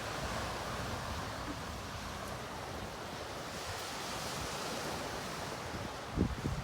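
Ocean surf washing on the shore, a steady rushing wash. Near the end, gusts of wind start buffeting the microphone with low thumps.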